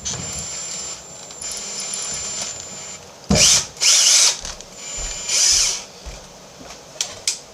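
Electric screwdriver running: a steady high motor whine for about three seconds, then three short, louder bursts.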